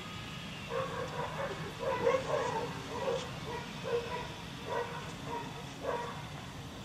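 A dog yipping in a run of short, high calls, two or three a second, which stop near the end.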